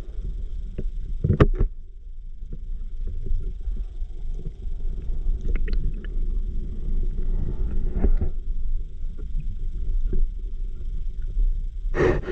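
Underwater river sound heard through a submerged camera: a steady, muffled low rumble of moving water with scattered clicks and knocks. A loud rush of noise comes near the end.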